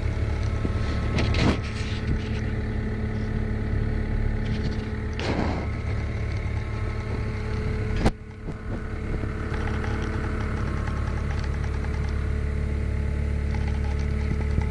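TL250 tracked skid steer's diesel engine running steadily. Two short rushing noises come in the first half, and a sharp click about halfway through is followed by a brief drop in the sound.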